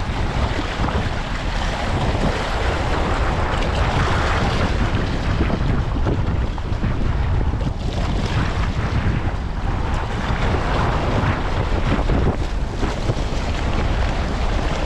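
Wind blowing across the microphone, a steady loud rush heavy in the low end, with no breaks.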